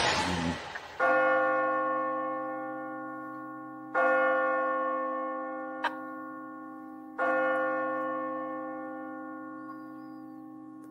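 A deep bell tolls three times, about three seconds apart, each stroke ringing on and slowly dying away. Before the first stroke a rushing noise fades out, and there is a single short click between the second and third strokes.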